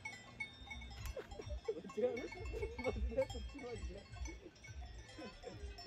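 Cowbells on a herd of grazing cattle clinking faintly, over a low rumble.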